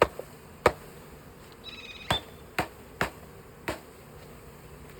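About six sharp knocks at uneven intervals as the package box of honeybees is jarred to shake the bees down into the hive. A faint buzz of honeybees runs under the knocks.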